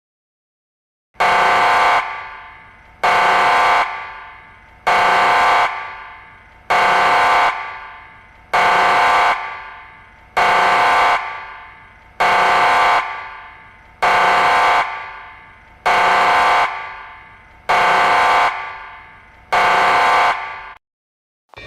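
Emergency alert alarm sounding a horn-like tone in eleven loud, evenly spaced blasts about two seconds apart. Each blast cuts off sharply and is followed by a fading echo.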